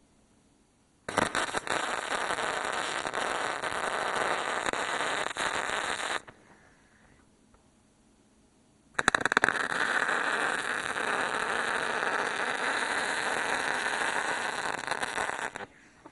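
Wire-feed (MIG) welder arc crackling through two welds: one of about five seconds, then after a short pause one of about seven seconds.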